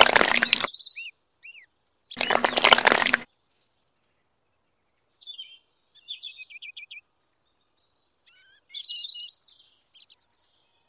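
Wet cement slurry pouring from a small cup into a mold, in two short noisy spells within the first three seconds. After a pause, faint scattered bird chirps fill the rest.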